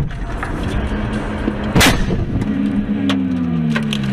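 A car crash recorded by the car's dash cam: a sharp bang at the start, then a heavier crash of impact about two seconds in. Scattered knocks and clatter follow, with a low tone sliding down in pitch.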